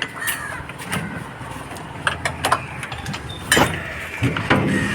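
Metal knocks and clinks of tools and parts as an outboard boat engine is taken apart: a scatter of sharp strikes, the loudest a little past halfway.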